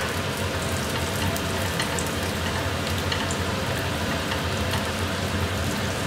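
Cashews and whole spices (green cardamom, cloves) frying in a little hot oil in a pan, a steady sizzle with scattered small pops as they toast toward light brown.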